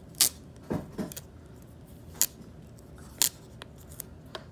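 A dust-removal sticker dabbed onto and lifted off a smartphone's glass screen, making a series of short, sharp sticky clicks about one a second.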